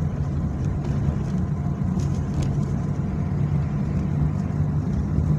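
A car's engine running steadily with tyre and road noise, heard from inside the cabin while driving.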